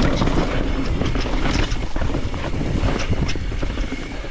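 Mountain bike riding fast down a rough dirt trail: tyres rumbling over the ground and the bike rattling and clattering over the bumps, with wind rushing on the microphone. It eases off near the end as the bike slows.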